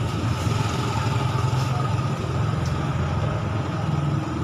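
An engine idling steadily: a continuous low drone.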